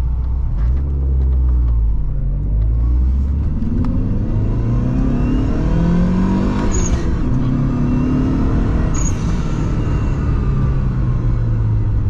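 Lancia Delta Integrale Evo 2's turbocharged four-cylinder engine pulling under acceleration, heard from inside the cabin, its note climbing in pitch. About seven and nine seconds in there is a short high hiss where the note breaks, as it shifts up.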